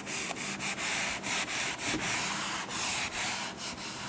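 Whiteboard duster wiping marker ink off a whiteboard: a rasping rub in quick back-and-forth strokes, about three or four a second.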